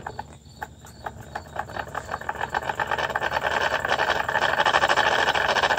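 Jensen Model 25 toy steam engine running with a rapid, even chuffing clatter. Its reversing lever is worked, and about half a second in it drops almost quiet, then picks up speed and grows steadily louder over the next few seconds until it runs steadily.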